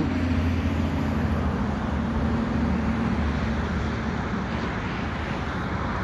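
Steady traffic noise from a busy multi-lane highway: a continuous rush of tyres and engines with a low hum underneath, easing slightly toward the end.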